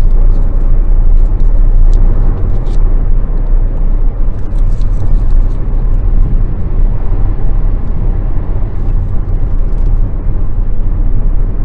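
Steady low road rumble of a car in motion, heard from inside the cabin.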